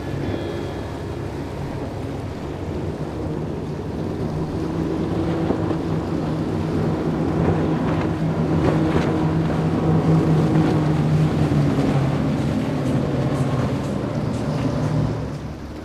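Large center-console boat's engines running hard at speed: a steady engine drone over the rushing splash of the hull through the water. It grows louder as the boat comes close, is loudest a little past the middle, and drops off sharply near the end.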